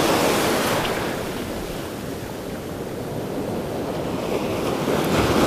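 Ocean surf washing in over the beach, swelling at first, easing off in the middle and building again near the end as the next wave comes up, with wind buffeting the microphone.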